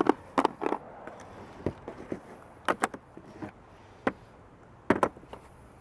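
Sharp, irregular metal clinks and clacks of sockets and a ratchet extension being handled, swapped and tried on a bolt of the jet pump cover.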